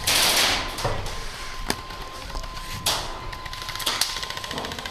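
Airsoft guns firing: a short noisy burst at the start, a few sharp single cracks spread through, and a fast rattle of full-auto fire near the end.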